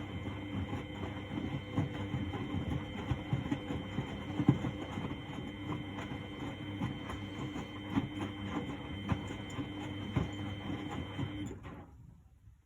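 1999 Miele Novotronic W828 front-loading washing machine tumbling its load in the wash: a steady motor whine under the sloshing and knocking of wet clothes in the turning drum. It stops about a second before the end as the drum pauses between turns.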